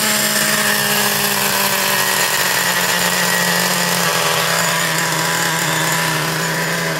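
Traxxas TRX 3.3 two-stroke nitro engine in a Revo RC truck, running steadily on the bench after a rebuild with a replacement connecting rod; its pitch drops slightly about four seconds in. The owner thinks the mixture may be running rich.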